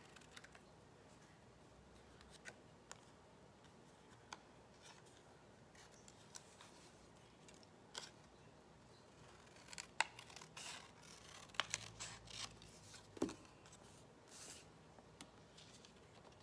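Scissors freehand cutting patterned paper: quiet, scattered snips and clicks, with a few sharper snips in the second half.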